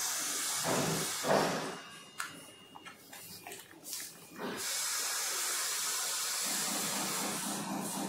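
Rustling, scraping and a few knocks as hands pull apart plastic battery connectors and move the wiring inside an electric scooter's deck. A steady hiss comes in about halfway through, and a low hum joins near the end.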